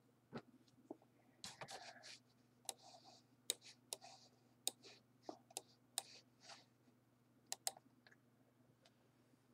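Faint, irregular clicks of a computer mouse and its scroll wheel, about fifteen sharp clicks over several seconds, with a faint steady electrical hum beneath.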